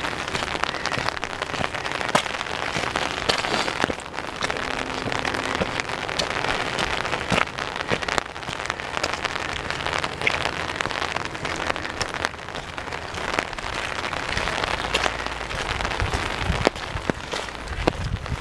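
Steady rain hiss, with many sharp ticks of single drops striking close to the microphone. A low rumble comes in near the end.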